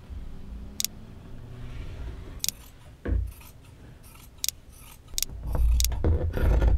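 Fabric shears cutting through bedsheet fabric on a table: a series of sharp snips of the blades, a second or so apart. Dull low thumps come in, loudest near the end.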